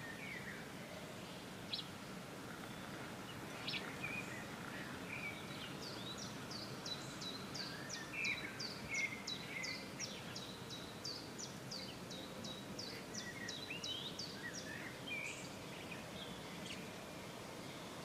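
Small birds calling and singing, with scattered chirps and, through the middle, a long run of rapid high repeated notes, about three a second, over a steady outdoor background hiss.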